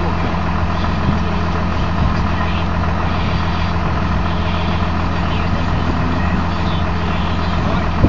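Tractor engine idling with a steady, deep, even hum.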